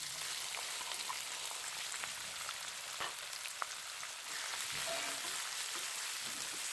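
Freshly added chopped onions sizzling in hot oil in a wok: a steady hiss with a few small crackles.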